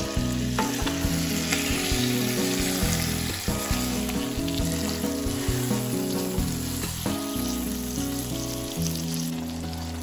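Whole chicken sizzling as it browns in hot oil in a nonstick pot, with a few sharp knocks as the tongs and silicone spatula turn it against the pot. Soft bossa nova music plays underneath.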